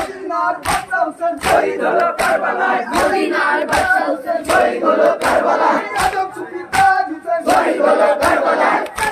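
Matam: a crowd of men chanting a Muharram mourning lament together while beating their chests with open hands in unison. The slaps land together about once every three-quarters of a second.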